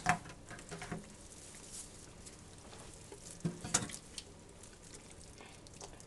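Hands rubbing vegetable oil over the skin of a raw turkey: faint wet, slick rubbing, with a sharp knock right at the start and another a little under four seconds in.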